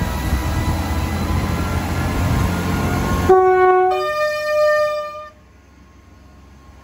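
A passing train rumbling heavily, stopping abruptly about three seconds in. A train horn then sounds two notes, a short lower one followed by a longer higher one.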